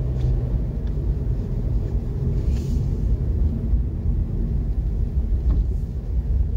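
Steady low rumble of a car driving on a city street, engine and tyre noise heard from inside the cabin.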